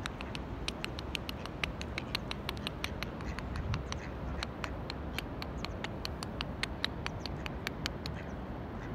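A rapid, irregular run of sharp little clicks, several a second, over a steady low rumble; the clicks stop about a second before the end.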